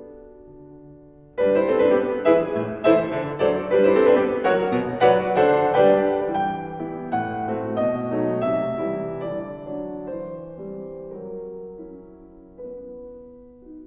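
Piano background music: soft at first, then a fuller run of notes coming in about a second and a half in and slowly dying away.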